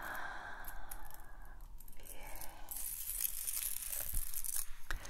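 Aluminium-foil finger claws crinkling and clicking against each other close to the microphones, with light, scratchy rustling.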